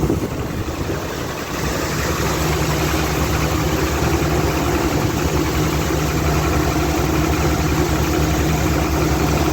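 Vehicle engine idling steadily and warming up, a little louder from about two seconds in. The exhaust is burning clean with no soot.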